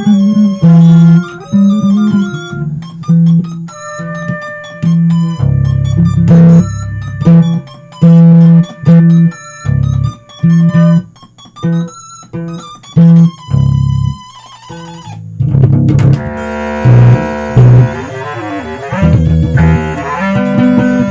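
Instrumental jam: short plucked guitar and electric bass notes in a stop-start pattern, growing denser and fuller about fifteen seconds in, with a wavering, sliding tone partway through that part.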